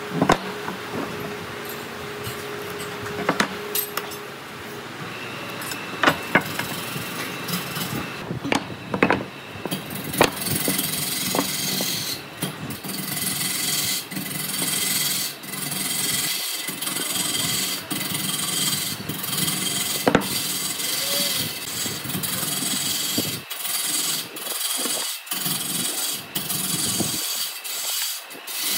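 Scattered knocks and taps on wood, then from about ten seconds in a tool rubbing over hardwood in steady strokes about once a second.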